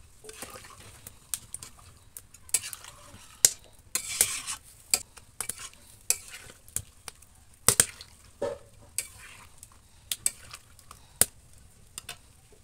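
Metal spatula stirring mutton curry in a metal pan, with irregular clinks and scrapes against the pan and a longer scrape a few seconds in.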